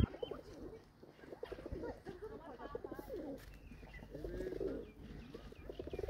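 Feral pigeons cooing over and over, low throbbing coos overlapping one another, with faint higher chirps among them.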